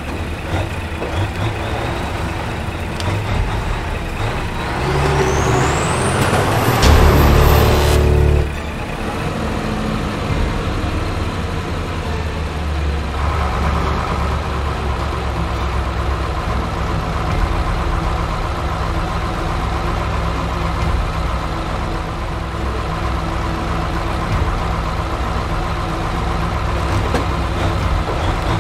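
Engine of a Berkut 8x8 all-terrain vehicle running steadily under load. A rising sweep builds to the loudest point and cuts off abruptly about eight seconds in.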